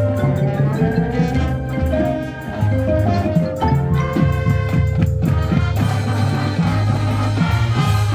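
High school marching band playing: held brass chords over a steady drum beat.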